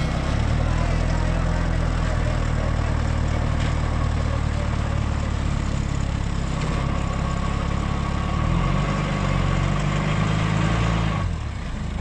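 Pickup truck engine running at low speed as the truck crawls over a muddy dirt track. The engine note rises about two-thirds of the way through, then falls off sharply near the end.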